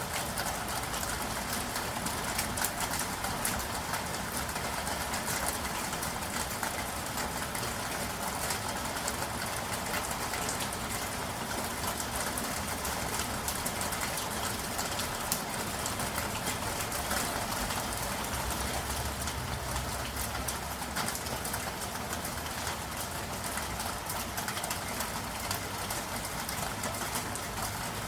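Steady city rain, a dense patter of drops over an even hiss, with a low rumble of traffic engines underneath.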